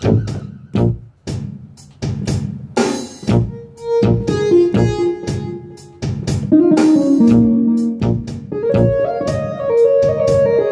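Instrumental music: irregular drum hits under held and stepping melodic notes, with no singing.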